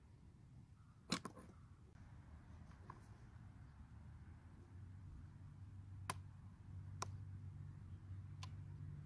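A few small sharp clicks of a wire throttle linkage rod being worked loose from a Stihl 034 AV Super chainsaw's carburetor: a double click about a second in, then single clicks near the end, over a faint low hum.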